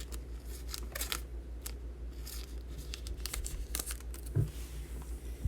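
Trading card packaging crinkling and tearing in irregular short crackles, with a soft thump about four seconds in.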